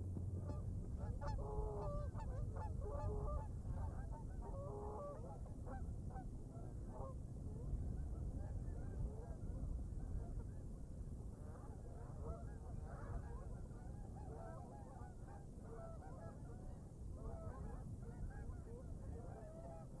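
Sandhill cranes calling: many repeated, wavering calls from several birds, beginning about a second in and carrying on throughout.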